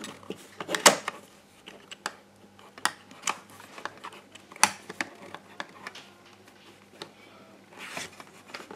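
Hands handling and working the plastic housing of a GHD 5.0 hair straightener: scattered sharp plastic clicks and light knocks with some rubbing, the loudest click about a second in.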